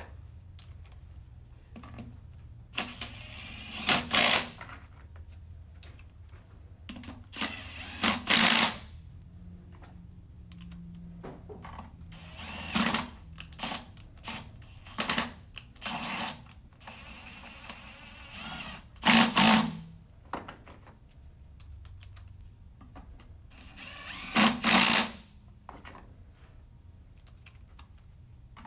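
Cordless impact driver running bolts into a transmission case cover in short bursts of under a second each, about eight times, tightening the cover down.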